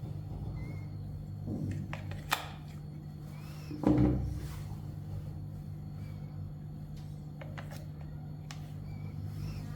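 Handling noises: two sharp clicks about two seconds in and a louder thump about four seconds in, over a steady low hum.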